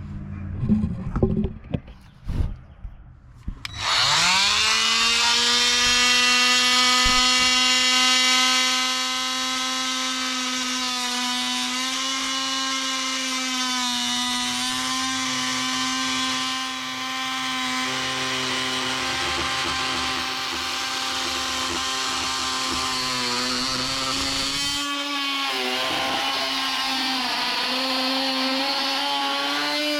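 A few knocks and handling noises, then about four seconds in an oscillating multi-tool starts, spins up quickly and runs with a steady buzzing pitch while its blade plunge-cuts into dry 2x wood. Its pitch sags slightly a few times as the blade bites.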